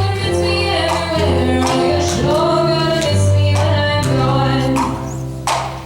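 A song performed live by singers over a band with bass and drums, ending on a final hit about five and a half seconds in.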